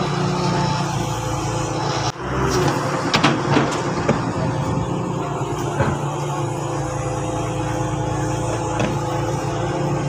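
Sumitomo hydraulic excavator's diesel engine running steadily while it digs, with a brief break in the sound about two seconds in and a few sharp knocks a second or so later.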